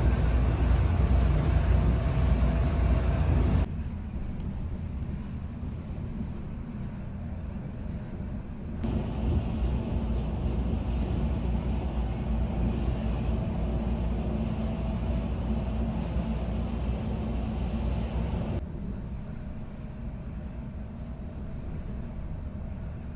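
Road and engine noise inside a Volvo 9600 sleeper coach cruising on a highway: a steady low rumble with tyre and wind hiss. The sound changes abruptly about four, nine and nineteen seconds in, switching between a fuller hiss and a more muffled low rumble.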